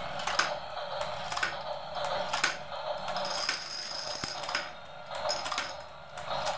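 Small plastic dominoes toppling one after another in a chain reaction, a string of light plastic clicks, over the toy domino train's electronic music.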